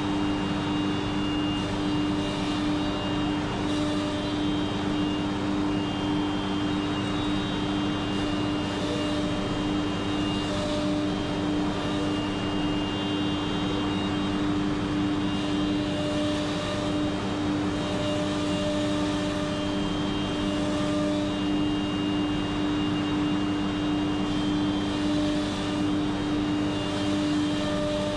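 HOMAG CENTATEQ CNC machining centre running through a machining cycle on a cabinet panel: an even mechanical hum with a strong low tone, and high whining tones that come and go every few seconds as the machine works.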